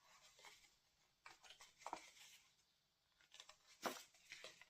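Faint scattered rustles and soft scratchy ticks of cardstock being handled and folded, in near silence.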